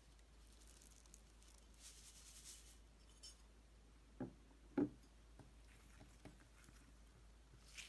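White slime with polystyrene beads being handled: faint crackling, then two sharp clicks or pops about four and five seconds in, the second louder, followed by a few soft ticks.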